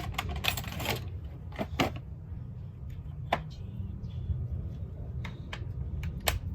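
Scattered sharp clicks and knocks of hand tools and parts being handled, over a steady low hum.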